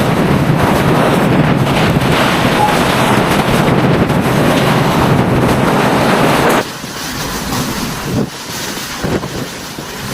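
Hurricane-force wind blasting the microphone in a loud, unbroken rush; about two thirds through it cuts abruptly to quieter, gusty wind with a few knocks.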